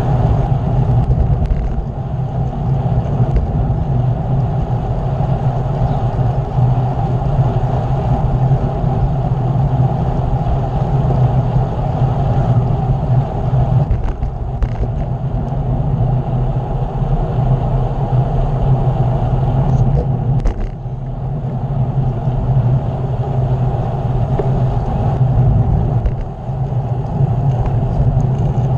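Steady rumble of wind on the microphone and tyre noise from a bicycle being ridden, with a couple of brief dips in level.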